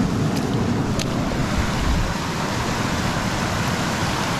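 Steady rushing noise of river water, with wind buffeting the microphone.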